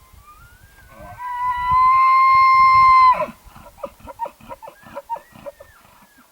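Bull elk bugling: a rising call that settles into a high, steady whistle for about two seconds and breaks off abruptly. It is followed by a run of about eight short grunting chuckles, the bull's glunks.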